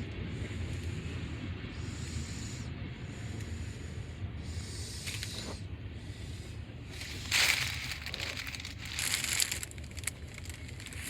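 Freight cars rolling past a grade crossing: a steady low rumble of wheels on rail under a hiss that comes and goes in a regular beat. Louder noisy surges come about two-thirds of the way through and again near the end.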